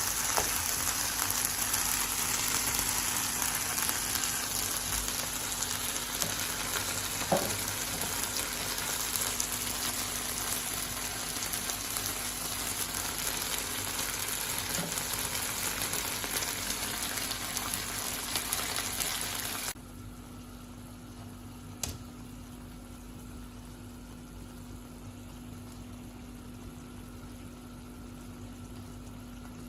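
Chicken wings frying in hot oil, a dense steady sizzle. About two-thirds of the way through, the sizzling cuts off suddenly, leaving a low steady hum and a single click a couple of seconds later.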